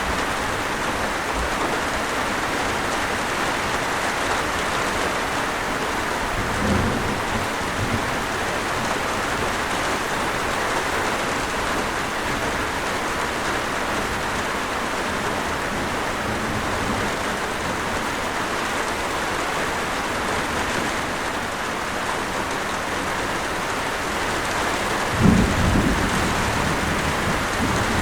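Steady rain falling, with low rumbles of thunder: a softer one about seven seconds in and a louder one near the end.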